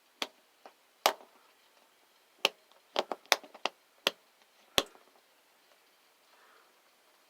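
Norcold RV refrigerator's electronic igniter sparking at the propane burner with the gas valve held open, a series of sharp clicks at uneven spacing that stop after about five seconds. The flame indicator is not yet lit, so the burner is still trying to light.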